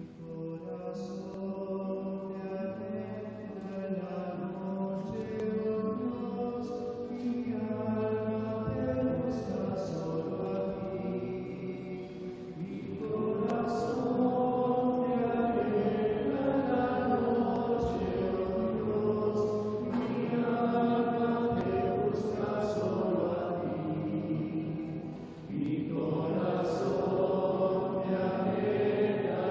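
A congregation singing a slow, meditative Taizé chant together in long sustained phrases, with short pauses for breath between repetitions.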